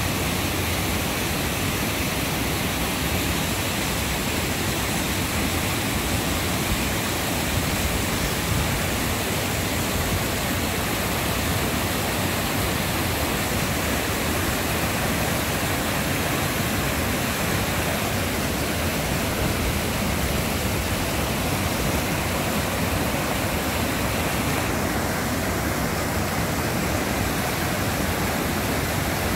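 Floodwater in a rain-swollen creek rushing steadily over rapids.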